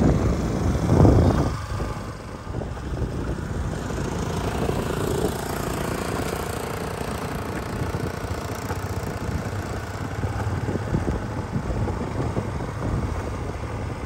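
Small motorcycle engine running steadily while riding along a road, with wind rumbling on the microphone in two loud gusts in the first second and a half.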